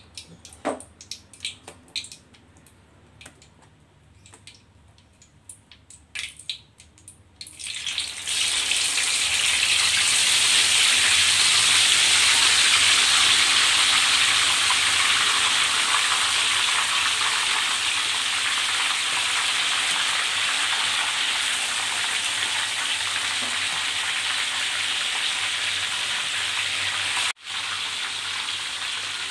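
Marinated tempeh slices deep-frying in hot oil in a wok: a loud, steady sizzle that starts abruptly about eight seconds in, after a few light clicks and taps. It breaks off for an instant near the end.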